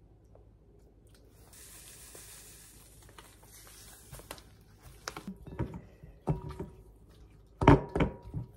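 Seasoning poured over raw pork chunks in a glass bowl with a soft hiss. It is followed by a gloved hand mixing and squeezing the meat, with wet squelches and clicks against the bowl, loudest near the end.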